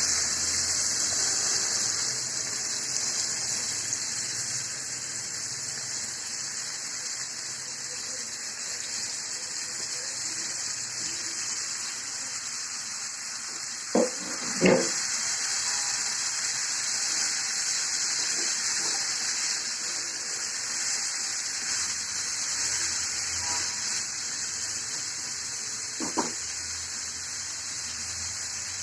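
Cauliflower, carrot and potato frying in oil in a pan, a steady sizzling hiss, with a few sharp knocks of a spatula against the pan about halfway through and again near the end.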